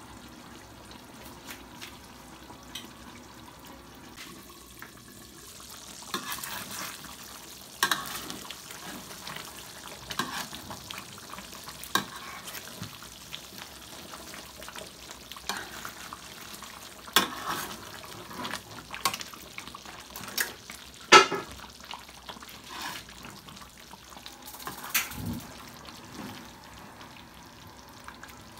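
Duck caldereta simmering in a thick sauce in a wok: a steady bubbling hiss that grows brighter about six seconds in, then stirred with a metal spatula, with scattered scrapes and clicks of the spatula against the wok, the loudest about three quarters of the way through.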